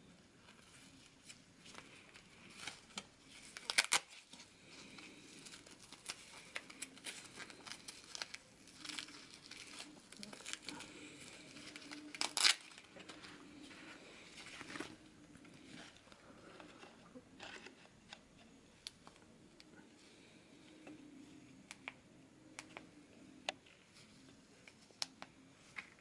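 Handling noise from a velcro-fastened reflective LED arm band: scratchy rustling and crinkling throughout, with two louder rasps of the velcro being pulled apart, about four and about twelve seconds in.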